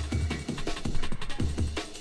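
Drum and bass music: fast, busy drum hits over a deep bass note that comes in twice, at the start and again about a second and a half in.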